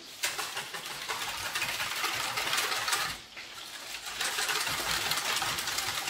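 Wire whisk beating a thin liquid marinade in a stainless steel bowl. It makes a rapid, continuous metallic scraping and clicking, in two bouts with a short break about three seconds in.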